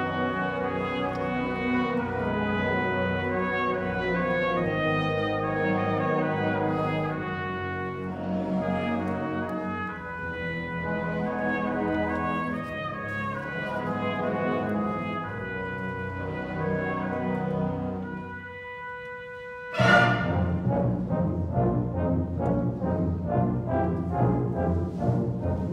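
Student honors concert band playing, with brass to the fore. About 18 seconds in the music drops to a soft held chord, then the full band comes back in suddenly and loudly a couple of seconds later and plays short, rhythmic accented chords.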